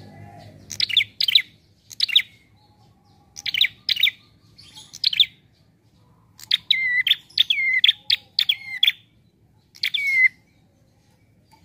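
Caged prinia (prenjak) calling with its relaxed call: short clusters of sharp, high chirps spaced a second or so apart, then a quicker run of repeated downward-sweeping notes about six to nine seconds in, and one last burst near the end.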